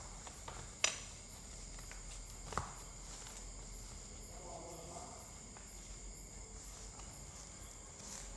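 Faint background hiss with a thin, steady high-pitched whine, broken by a few soft clicks, the loudest about a second in and another a little after two and a half seconds.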